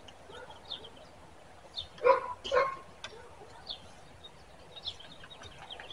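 A dog barks twice, about two seconds in, the barks half a second apart, over scattered faint bird chirps.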